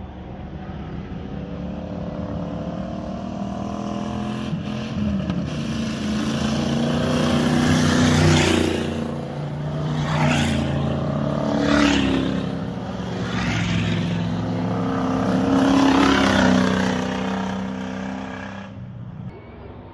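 Dirt-track race cars with Ford 302 small-block V8 engines running hard and passing close one after another, each engine note swelling and bending in pitch as it goes by, loudest about eight and sixteen seconds in. The sound cuts off abruptly just before the end.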